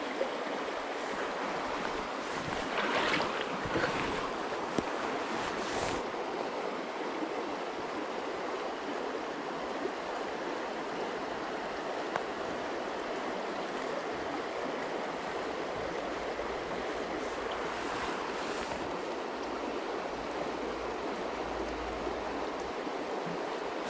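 Shallow stream running steadily: an even, unbroken rush of flowing water.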